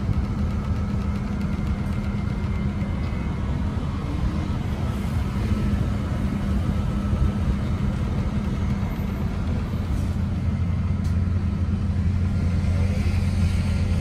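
A bus running: a steady low hum with road noise, growing slightly louder in the second half, with two faint clicks near the end.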